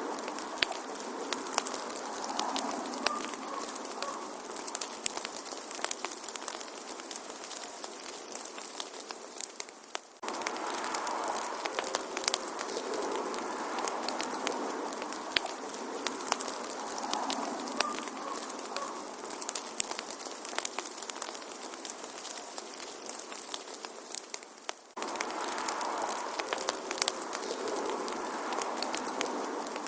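Wood fire in a fireplace crackling, with frequent sharp pops and snaps over a steady hiss of flame. Twice the sound fades briefly and then jumps straight back.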